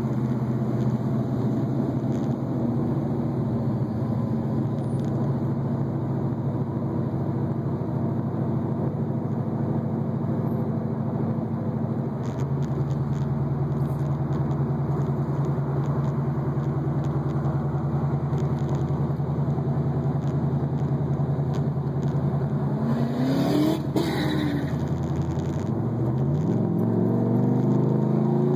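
Turbocharged Camaro IROC-Z's stroked 6.0-litre truck V8 with an 88 mm turbo, heard from inside the car as it moves slowly in traffic: a steady deep drone. About 22 seconds in, and again near the end, the pitch rises as the engine is revved and the car accelerates.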